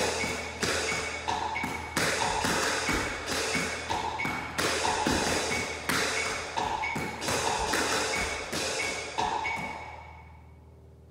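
Tap shoes striking a hard floor in a quick rhythmic tap-dance combination of brushes, heels and shuffles, over music with a steady beat. The music fades out near the end.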